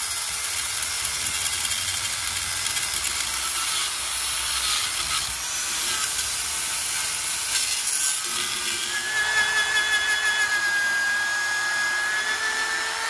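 An electric angle grinder with a sanding disc grinds surface rust off a cast-iron rear brake drum. About two-thirds of the way through, a drill with a wire brush takes over on the drum, adding a steady high whine.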